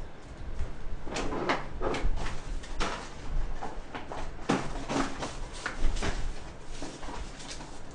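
Scattered knocks and clatter throughout, like cupboard doors or drawers opening and closing, from someone moving about the room away from the table.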